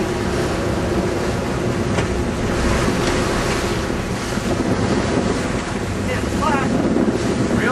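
Wind buffeting the microphone over the steady running drone of a sportfishing boat's engine and the wash of the sea.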